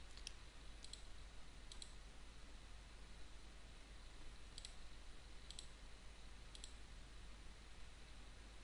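Faint computer mouse clicks, about six of them at uneven intervals, each a quick press-and-release pair, as corner vertices of a spline line are placed one by one.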